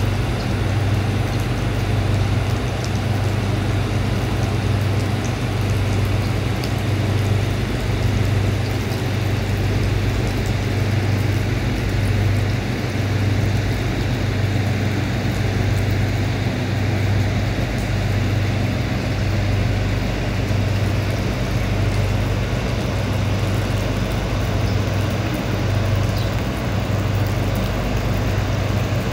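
Steady outdoor ambience: an even hiss over a continuous low hum, with no distinct events.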